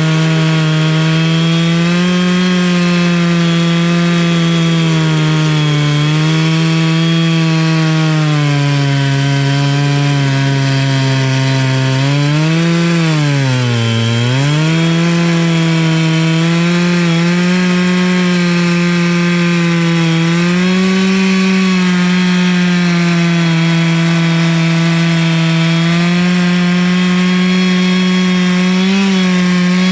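Chainsaw on an Alaskan chainsaw mill running at full throttle, ripping a log lengthwise into a 1-inch board. The engine note holds steady under the load, except about halfway through, where it bogs down in pitch and then recovers.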